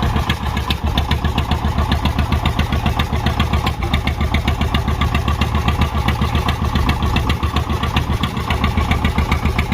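A fishing boat's engine running steadily with a fast, even chug.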